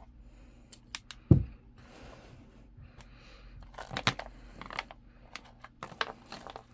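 Glass beads clicking against each other as they are pulled off their strands and dropped onto a bead board, with one low thump a little over a second in.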